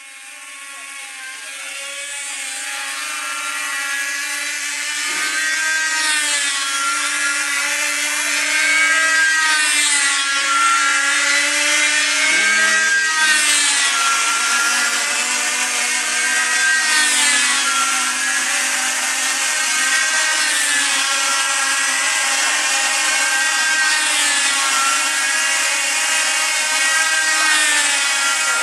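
Several diesel combat model aircraft engines running flat out together, a whining buzz that rises and falls in pitch about every three to four seconds as the models circle. The sound fades in over the first few seconds.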